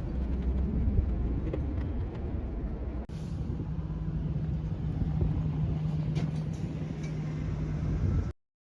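Low, steady engine rumble with a constant hum, broken by an abrupt cut about three seconds in and stopping suddenly near the end.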